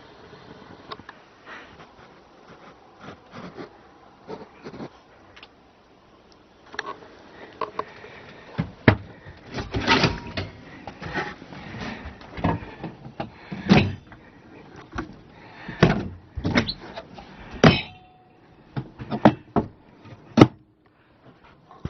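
Knocks, clicks and rattles of an old trailer's metal-framed window being worked by its handle and its wooden cabinetry being handled. Light clicks come at first, then a run of sharp knocks and rattles from about a third of the way in, the loudest about a second before the end.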